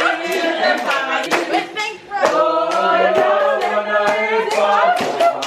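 A group of voices singing together, held notes gliding up and down, over sharp hand claps or hand slaps.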